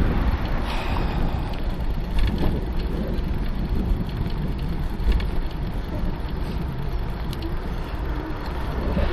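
Wind rumbling on the microphone of a camera riding on a moving bicycle: a steady low rumble, with a few faint rattles from the bike.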